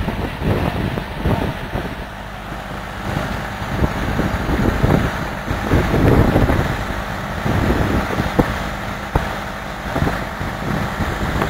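Vintage Garvie threshing machine at work: a steady mechanical drone with engine noise underneath, swelling and easing irregularly.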